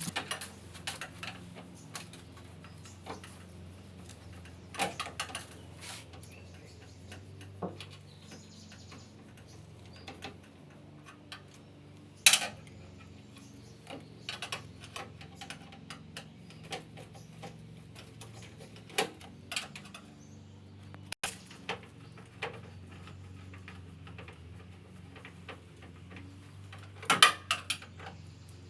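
Scattered clicks, taps and light metallic clinks of tools and parts being handled during washing-machine repair work, with sharper knocks about twelve seconds in and near the end, over a steady low hum.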